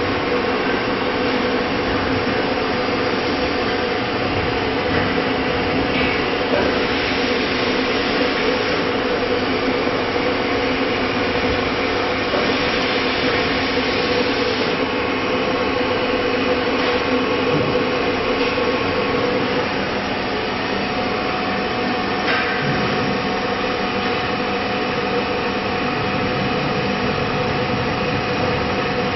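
Acctek AKM1325C CNC router running after an XYZ home command, a steady mechanical hum with a constant whine. The upper hiss swells a few times as the axes move.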